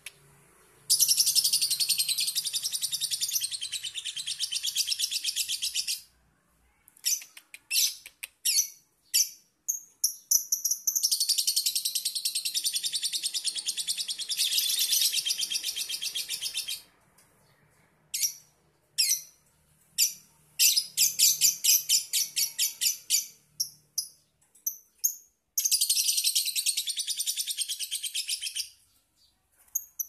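Fischer's lovebird singing its rapid, high-pitched chattering song (the 'ngekek' prized by Indonesian bird keepers) in long unbroken bouts of several seconds each, with short bursts of chirps between the bouts.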